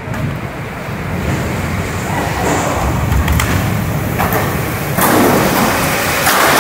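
Storm wind gusting hard with heavy rain, buffeting the microphone in a low rumble, with a few sharp knocks. About five seconds in the wind and rain grow louder.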